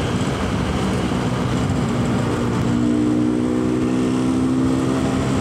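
A Yamaha RX-King's two-stroke single-cylinder engine running through its stock exhaust while riding. Its note evens out into a steady pitch about halfway through.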